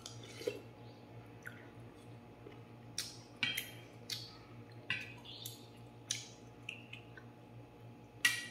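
Eating sounds: a fork and spoon clinking and scraping against a stainless steel bowl of noodle soup, in scattered short sharp clicks, most of them between about three and six seconds in and one more near the end.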